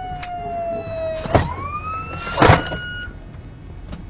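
Police car siren wailing: its pitch slides slowly down, then climbs again after about a second and cuts off about three seconds in. Two short, loud bursts of noise come about one and two and a half seconds in.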